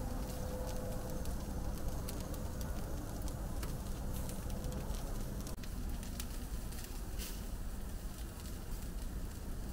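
Firewood burning in a barbecue grill, crackling steadily with scattered sharp pops over a low rumble.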